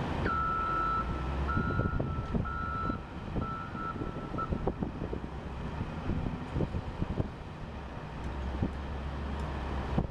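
Volvo wheel loader's reverse alarm beeping about once a second while it backs up, stopping a few seconds in, over its diesel engine running. The engine grows louder near the end as it lifts the loaded bucket, with scattered clanks.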